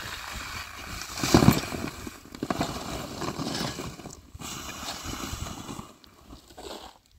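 Dry dirt being scraped and scattered over plastic sacking, with scuffs and crinkling rustles. The loudest scrape comes about a second and a half in, and it grows quieter after about six seconds.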